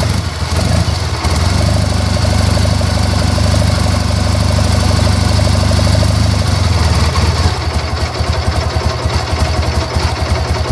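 A 2001 Triumph Bonneville's air-cooled parallel-twin engine catches on the electric starter right at the start and runs steadily. After about seven and a half seconds the idle turns uneven, with distinct firing pulses. This is an easy restart on a freshly fitted LiFePO4 battery.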